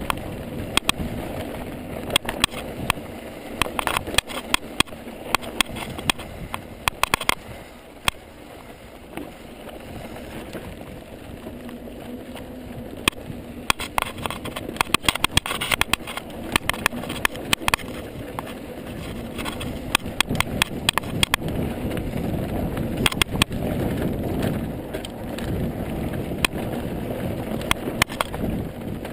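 Ibis Mojo full-suspension mountain bike riding down a dry dirt trail: a steady rumble of tyres on loose dirt and gravel, with wind on the microphone and frequent sharp clicks and rattles. It is quieter for a moment about a third of the way in, then louder and busier in the last third.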